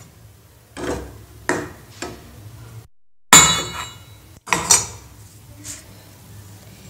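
A metal ladle stirring soup in a metal pan: a series of sharp clinks and knocks of metal on metal, the loudest about three seconds in, just after a brief dropout.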